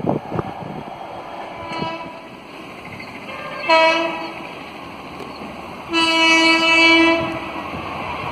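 Horn of an approaching WAP-4 electric locomotive hauling an express train. A faint toot comes about two seconds in, a short blast near the middle, then a longer blast of about a second and a half.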